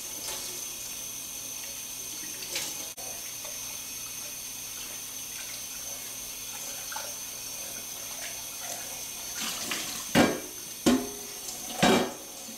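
Kitchen faucet running steadily into a stainless steel sink while a stainless steel pot and lid are rinsed under the stream. Near the end, three loud knocks as the pot is handled against the sink.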